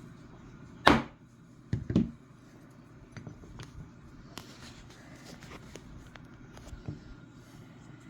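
Sharp metal knocks of a hammer tapping a pin punch to drive out a small pin from a rifle's trigger group: one loud knock about a second in, two quicker ones just before two seconds, then faint small clicks of handling.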